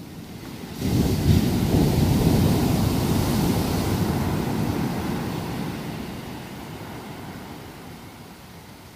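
An ocean wave crashing on a sandy beach. The surf comes in suddenly about a second in, then the wash fades slowly as it spreads up the sand.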